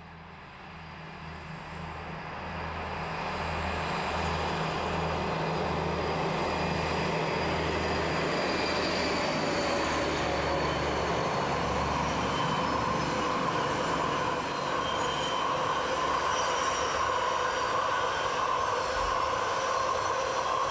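Two DB class 218 diesel-hydraulic locomotives, working in tandem, pass with a heavy car-transport train. Their diesel rumble pulses low and grows louder over the first few seconds, then holds. From about the middle on, the wagons' running gear adds a high squeal that is strongest near the end.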